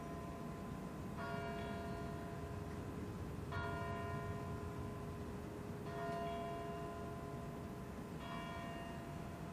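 A church bell tolling slowly, four strokes about two and a half seconds apart, each ringing on until the next, over a steady low background rumble.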